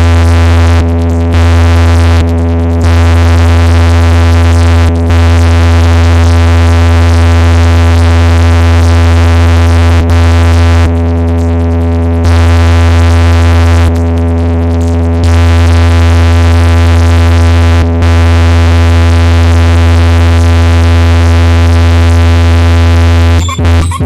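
Very loud synthesizer bass drone played as a sound-check test tone: one steady low note with a long stack of overtones, held unchanged for over twenty seconds. Its upper hiss drops out briefly several times, and near the end it breaks off into choppier sounds.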